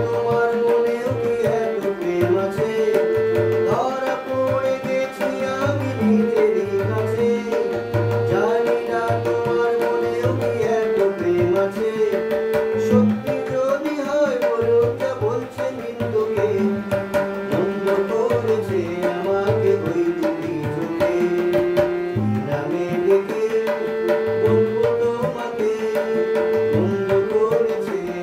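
Harmonium playing a Bengali song's melody in long held notes over a steady tabla beat, with a man's voice singing along.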